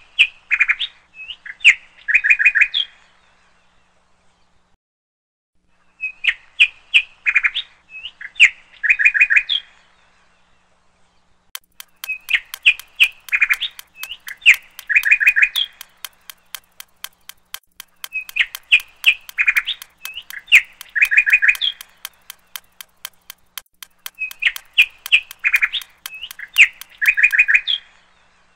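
Looped birdsong backing track: the same short phrase of bird chirps repeats about every six seconds. A steady fast ticking, about four clicks a second, joins in about twelve seconds in and stops near the end.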